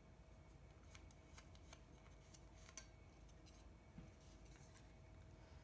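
Faint, scattered light clicks and crinkles of a thin aluminum flashing strip being handled and pressed, with one slightly louder click about three seconds in.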